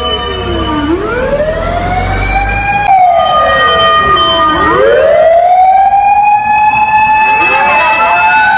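Emergency vehicle's mechanical motor siren winding up and down in slow wails, each rise or fall taking about two seconds. Steady siren tones and a second overlapping wail sound alongside it.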